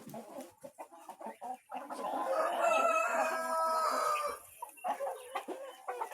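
A domestic rooster crows once, a single call of about two seconds starting about two seconds in, among short clucks from chickens before and after it.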